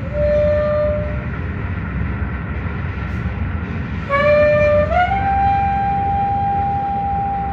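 Alto saxophone playing long held notes over a steady low background; about four seconds in, a new note bends upward and is sustained.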